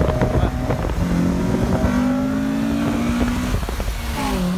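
Car engine with a loud exhaust accelerating hard. It starts with a rough crackling rasp, then its note climbs steadily, dips briefly near the end as it shifts up a gear, and climbs again.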